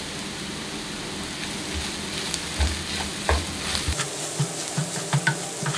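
Scrambled egg and onion masala sizzling in a nonstick frying pan while a wooden spatula stirs it. From about two seconds in, the spatula scrapes and taps against the pan, with a few dull low thuds.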